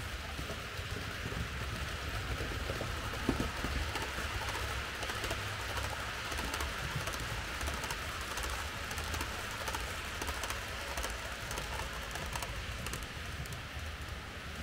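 H0-scale model trains running on the layout: a steady motor hum and wheels rumbling on the track, with a stream of small clicks and one slightly louder knock about three seconds in.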